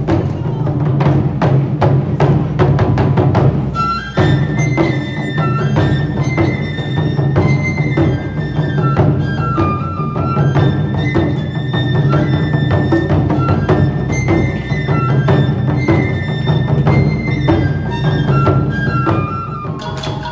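Japanese taiko drums beating a fast, steady rhythm. About four seconds in, a high flute joins with a stepping melody over the drums.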